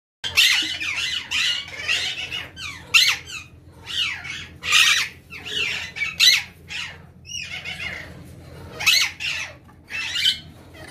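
Parrots squawking: a long run of harsh, repeated calls, often falling in pitch and coming about one or two a second, over a faint steady hum.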